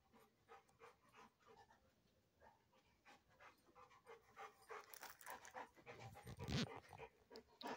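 Large mastiff-type dog panting in a steady rhythm, growing louder as she comes close, then snuffling at the carpet for treats about two-thirds in.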